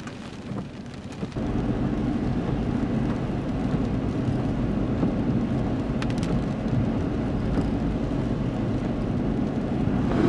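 Rain hissing on a car, then about a second and a half in a loud, steady low rumble sets in suddenly and holds.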